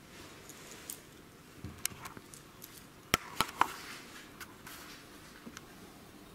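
A few light taps and then three sharp clicks close together about three seconds in, over quiet room tone.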